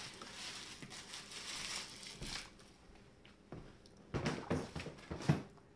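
Soft rustling and handling noises of a baby fiddling with a plastic pacifier and its clip strap, with a cluster of short knocks and rubbing about four seconds in.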